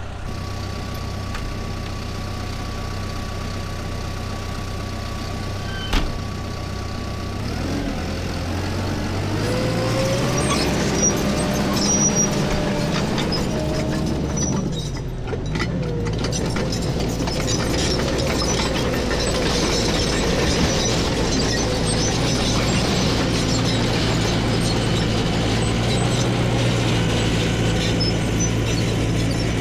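CAT D5K crawler bulldozer's diesel engine running steadily, then revving up about eight to ten seconds in and holding higher revs, with a brief dip near the middle. A single sharp click comes about six seconds in.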